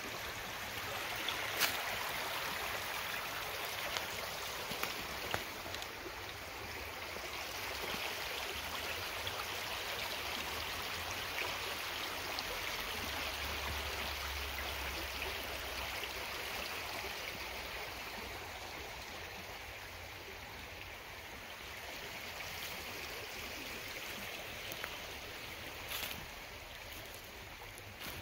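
A small forest creek running steadily, a continuous rush of water that swells through the middle and eases a little later on, with a few brief clicks.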